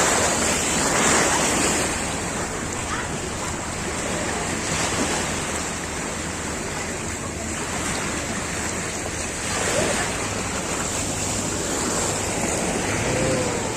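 Steady rush of sea water and wind, with a low hum underneath.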